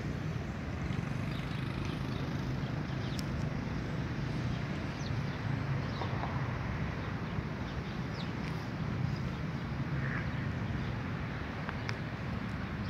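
Steady low rumble of street traffic, with a few faint, short bird chirps scattered through it.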